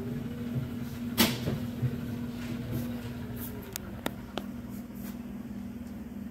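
Refurbished Precor elliptical cross-trainer running with a steady low hum, just switched on. A sharp clack comes about a second in and two lighter clicks around four seconds in.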